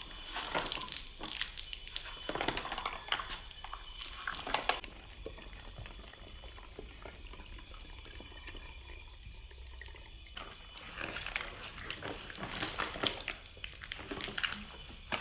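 Water thrown from a plastic bottle splashing and pattering down in two spells of splashing, one over the first five seconds and one from about ten seconds in, with a quieter stretch between.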